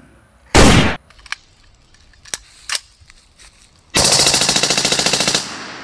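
A fully automatic rifle firing a burst of rapid shots for about a second and a half, then echoing away. It is preceded by a single loud bang about half a second in.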